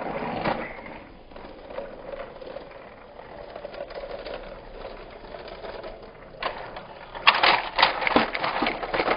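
Battery-powered TrackMaster Diesel 10 toy engine whirring along plastic track. About seven seconds in comes a loud clatter as it crashes into a wagon and its crash-and-repair pieces pop off.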